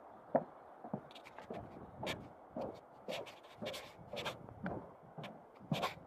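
Footsteps of a person walking at a steady pace on a trail, about two steps a second.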